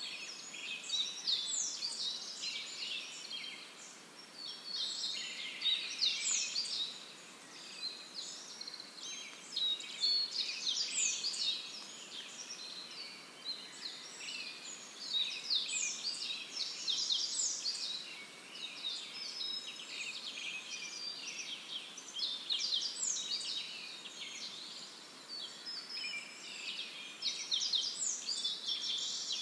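Chorus of many small birds chirping and twittering, quick overlapping notes that swell into louder bursts every few seconds.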